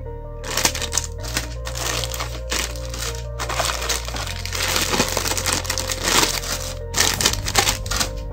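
Plastic bags holding model-kit runners crinkling and crackling as they are handled, over background music with sustained bass notes.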